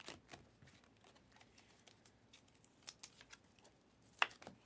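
Faint, scattered clicks and scrapes of Panini Mosaic trading cards being handled and slid against one another, with one sharper click about four seconds in.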